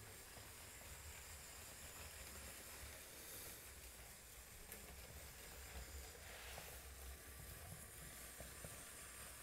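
Faint, steady running of a Lego train on plastic track: a low rumble of the wheels with a light hiss over it.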